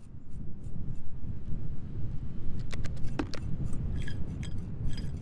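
A steady low wind rumble on the microphone, with scattered light clicks and scrapes of small hand tools, one sharper click about three seconds in.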